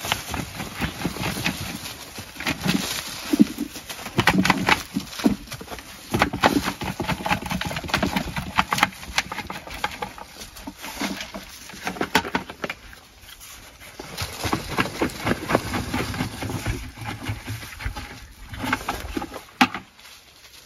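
Humus being tipped out of a plastic bucket onto the soil and spread by hand: irregular rustling and scraping with many small knocks and soft thuds of falling earth and the bucket.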